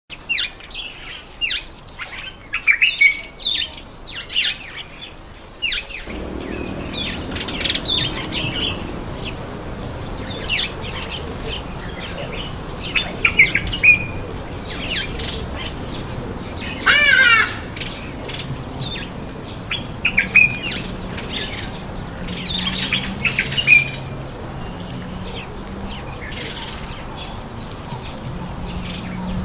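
Birds chirping with many short, sharp high calls, and one louder call with several stacked, wavering notes about halfway through. A low steady hum sits underneath from about six seconds in.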